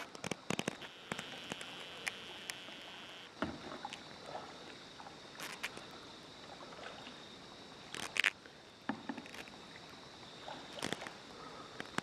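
Kayak paddling: a double-bladed paddle dipping into the water with irregular splashes and drips, and a few sharp clicks and knocks scattered through, the loudest about eight seconds in.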